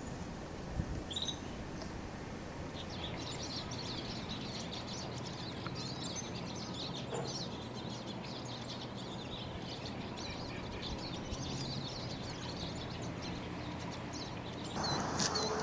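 Small songbirds chirping, many short high calls close together, over a steady low background rumble. A louder rushing sound comes in near the end.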